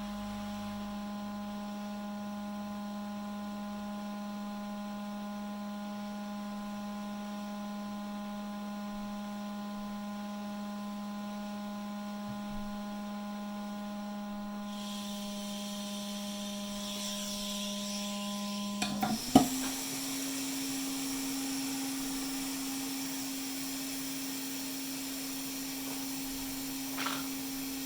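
A steady electrical hum from bench equipment with a hiss joining it part-way through. After a short burst of clicks about two-thirds of the way in, the hum resumes at a higher pitch.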